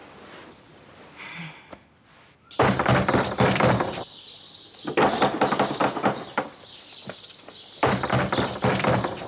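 Repeated heavy knocking on a wooden door, in three bursts of rapid blows each about a second and a half long. Birds chirp behind it.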